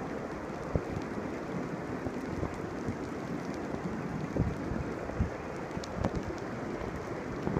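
Heavy rain pouring onto asphalt and a concrete sidewalk, a steady rushing hiss with scattered short thumps.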